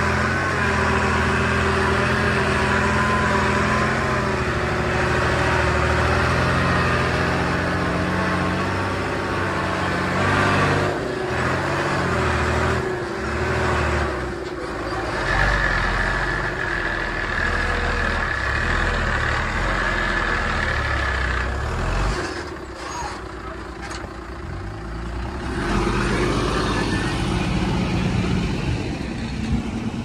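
Diesel engines of a crawler bulldozer and dump trucks running at work, the engine note shifting, with a steady high whine for about six seconds in the middle.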